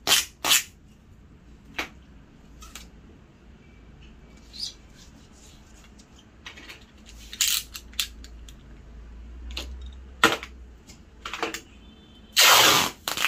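Scattered clicks and knocks as a large photo frame and its backing board are handled and pressed into place on a workbench, with a few louder rasping noises of about half a second each, the loudest near the end.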